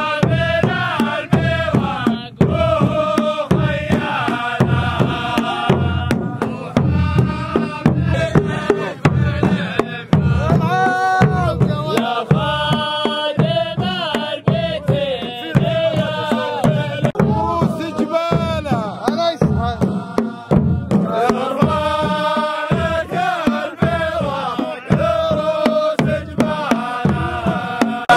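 Traditional Saudi sword-dance (ardah) music: men's voices chanting a melody over large stick-beaten drums keeping a steady beat.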